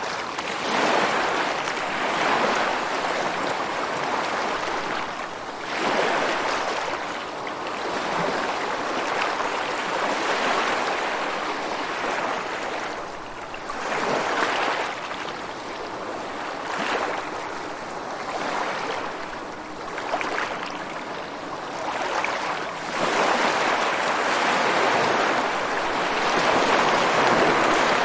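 Ocean surf: waves breaking and washing in, the rushing noise swelling and easing every few seconds.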